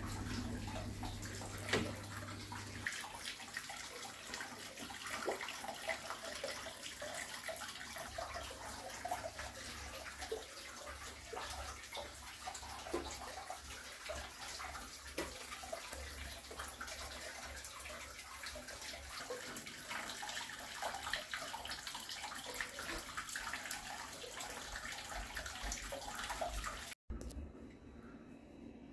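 Hot spring water running and splashing into a bath, a steady wash of sound with many small splashes, cutting off suddenly near the end.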